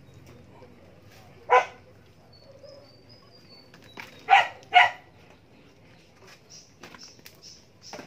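A dog barking three times, short sharp barks: one about one and a half seconds in, then two in quick succession near the middle.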